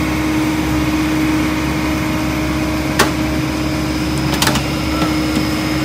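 Heavy vehicle's engine running steadily. There is a sharp click about three seconds in and a quick double click near four and a half seconds.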